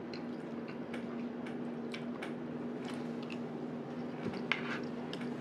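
Faint eating sounds: a person chewing food, with scattered small clicks, over a steady low hum.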